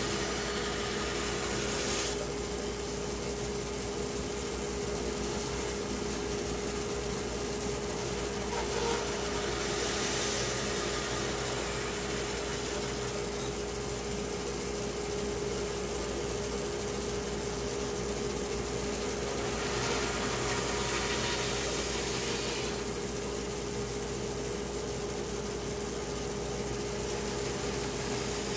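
A woodworking machine milling cherry wood runs steadily, a constant hum under an even noise that swells briefly a few times.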